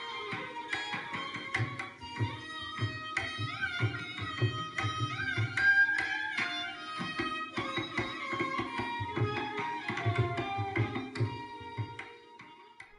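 Instrumental intro music: a steady hand-drum rhythm under a melody that slides between notes.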